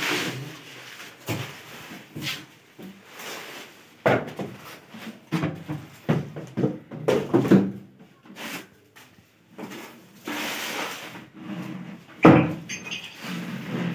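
Packaging being handled while an induction cooktop is unpacked: styrofoam end blocks and a thin protective wrap rustling, scraping and knocking in irregular bursts. The loudest knock comes near the end.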